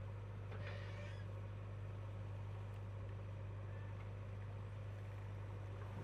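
JCB 3DX backhoe loader's diesel engine running with a steady low hum as the backhoe lifts a full bucket of soil and swings it up over a tipper truck.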